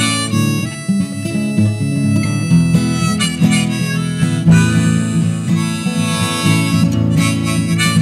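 Harmonica solo over strummed guitar accompaniment, an instrumental break in a folk song.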